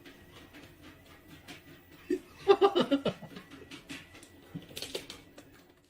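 A dog makes a short run of vocal sounds about two and a half seconds in, over faint room noise and scattered light clicks.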